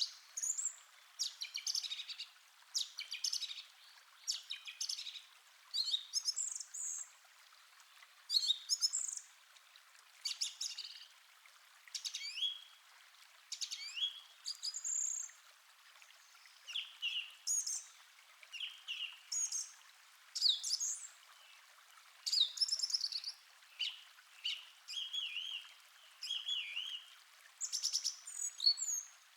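Forest birds singing: short chirping and warbling phrases follow one another every second or two. A faint steady hiss of a calm stream lies underneath.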